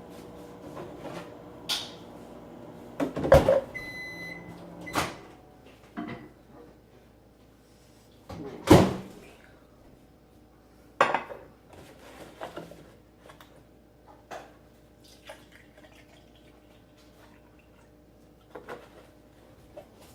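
Kitchen knocks and clunks of cupboard and appliance doors being opened and shut. A microwave oven's steady hum runs underneath at first and stops about five seconds in, and a single electronic beep sounds about four seconds in.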